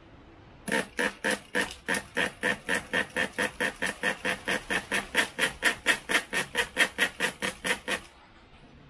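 A tiny nitro two-stroke engine driving a small water pump, chugging in an even train of sharp pops, about four or five a second. It starts about a second in and stops near the end. The engine is struggling to keep running under the pump's load.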